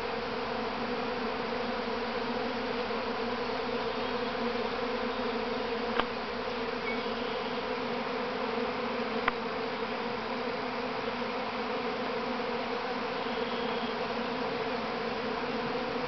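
A honey bee swarm in flight, the colony's first swarm leaving its hive: a dense, steady hum of many thousands of bees. Two brief clicks come about six and nine seconds in.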